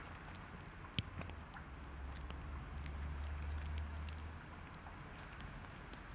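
Rail-yard ambience beside parked electric locomotives: a steady low rumble that falls away about four seconds in, under an even wash of noise, with two sharp clicks a second apart at the start.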